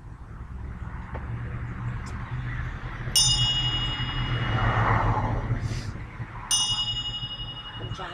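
Small brass hand bell rung twice, about three seconds apart, each strike a bright, high ring that sustains and slowly fades.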